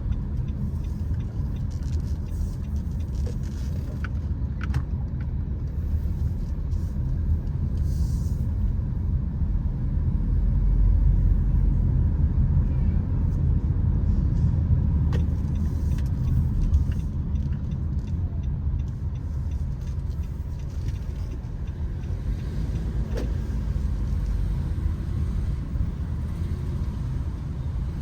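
Steady low rumble of road vehicles, a car on the move, swelling a little near the middle, with a few faint clicks.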